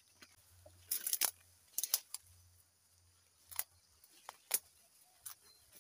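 Irregular sharp snaps and rustles of leaves and stems as someone pushes on foot through dense undergrowth and tall grass.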